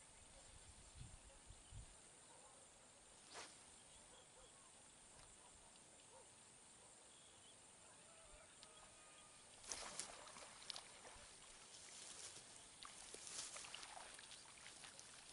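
Near silence with faint outdoor background hiss, one faint click about three seconds in, then a scatter of faint clicks and rustles from about ten seconds in.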